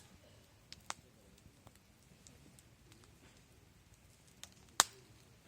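Wood fire crackling, with a few sharp isolated pops and snaps of burning wood, the loudest near the end.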